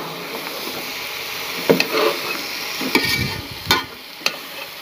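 A metal spoon stirring sliced potatoes and peas in a metal pot, the food sizzling in hot oil, with the spoon knocking and scraping against the pot about four times.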